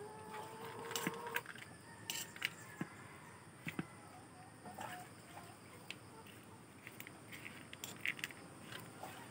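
A metal fork clinking and scraping against a plate as fried chicken pieces are tossed with mayonnaise, in scattered sharp clicks. A long, steady animal call is heard in the background during the first second and a half.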